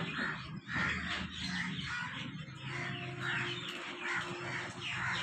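Crows cawing repeatedly, with a low steady hum underneath.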